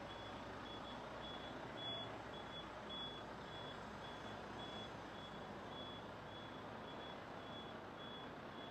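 Reversing alarm of a Renault Magnum lorry: a single high beep repeating evenly a little under twice a second, faint, over the low steady rumble of the lorry's diesel engine as it backs up.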